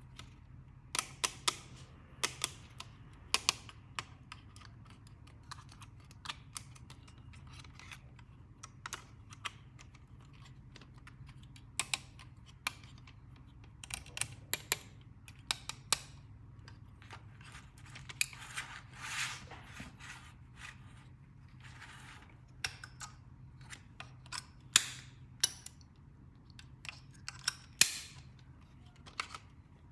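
Small plastic toy pieces clicking and tapping as they are handled, in irregular sharp clicks, with a couple of longer scraping or rustling stretches about two-thirds of the way through.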